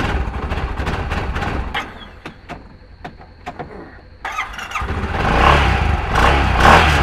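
Side-by-side UTV engine running with a steady low throb and a few clicks. It drops away about two seconds in, then picks up again and runs louder from about five seconds in.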